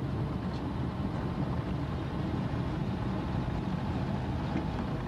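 Steady engine and road rumble heard from inside a moving car.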